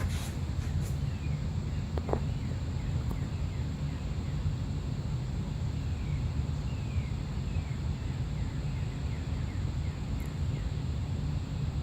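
Steady low rumble of the Casablanca Wailea ceiling fan's downdraft buffeting the microphone, the fan itself running quietly at medium speed. Birds chirp faintly in the background with short, falling calls.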